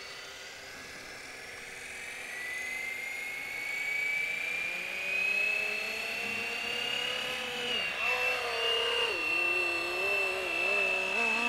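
Electric FlyWing FW450 V3 RC helicopter spooling up: a motor and rotor whine rises steadily in pitch and grows louder for about seven seconds, then holds steady. From about eight seconds in, as it lifts off into a hover, a lower rotor tone wavers up and down.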